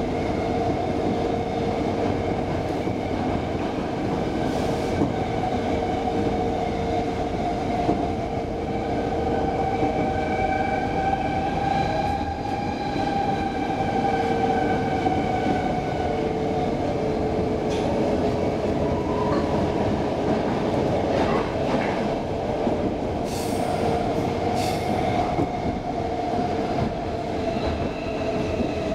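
Stockholm Metro C6 train car running, heard from inside: a steady rumble of wheels on track, with a whine in several tones that rises and falls gently with speed. A few sharp clicks from the track come in the later part.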